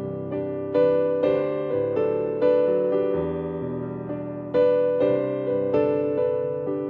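Slow instrumental piano or electric piano music: sustained chords struck every second or so, each note ringing and fading.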